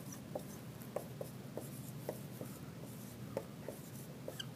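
Dry-erase marker writing numbers on a whiteboard: a string of short, irregular squeaks, one for each stroke.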